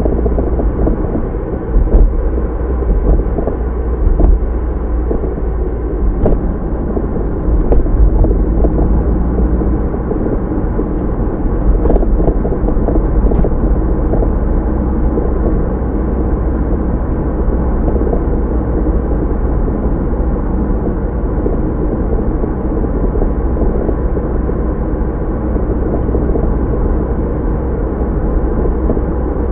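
Car on the move, heard from inside through a dashcam: steady low rumble of tyres, road and engine. A few faint knocks in the first half, like the car going over bumps.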